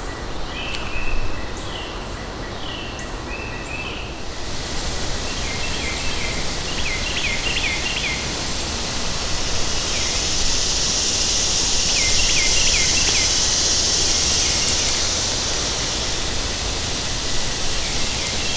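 Woodland ambience: a steady hiss that swells through the middle, with bird chirps in quick groups of three or four, repeated several times.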